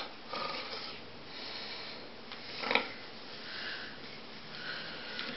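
Quiet small-room tone: a faint steady hiss with a few soft stirrings, and one short soft noise a little under three seconds in.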